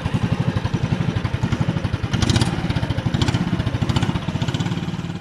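Engine of a klotok, a small wooden river motorboat, running steadily at speed with a fast, even putter. It fades away near the end.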